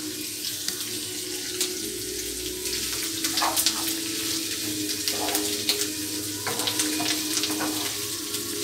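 Calamari, onion and chopped herbs sizzling in a frying pan over a gas burner. A steady hiss runs throughout, with short scrapes and taps as a wooden spatula stirs the pan.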